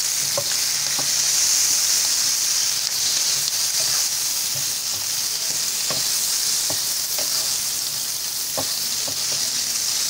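Whole green chillies frying in hot oil in a nonstick frying pan, a steady sizzle, with a spatula stirring them and knocking against the pan several times.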